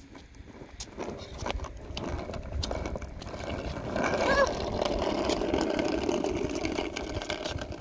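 Skateboard wheels rolling over rough asphalt, a grinding rumble that builds from about a second in and dies away near the end, with scattered clicks. A brief vocal sound about four seconds in.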